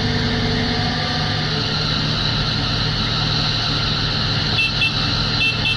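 Diesel engines of two Tata Hitachi crawler excavators running steadily at low revs, a deep even drone. Two short high chirps sound near the end.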